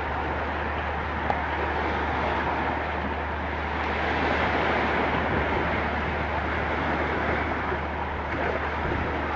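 Steady wind blowing on the camcorder's microphone: a constant rushing noise with a low rumble underneath.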